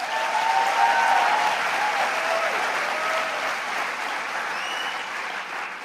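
Audience applauding, gradually dying down toward the end.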